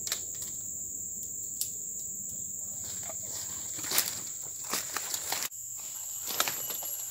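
Steady high-pitched drone of tropical forest insects, over footsteps in dry leaf litter and the crackle of twigs, with a few sharp snaps, the loudest about four seconds in.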